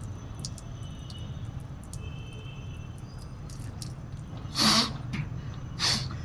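Two short, loud puffs of breath blown out through the nose and mouth during jal neti nasal rinsing with a neti pot, over a low steady hum. The puffs come near the end, about a second apart.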